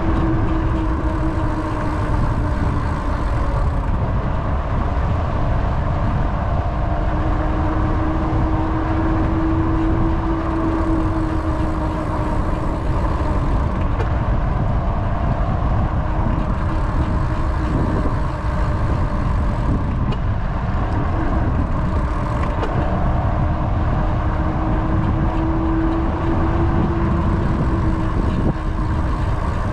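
Steady low rumble of wind buffeting the microphone and tyres rolling on an asphalt path during a ride. A steady hum fades in and out several times.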